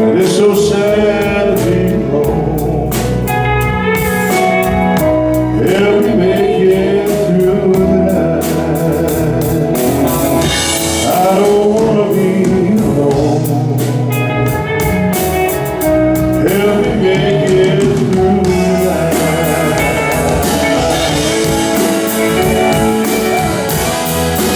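Live band playing a slow ballad with guitar and a drum kit, with singing over it.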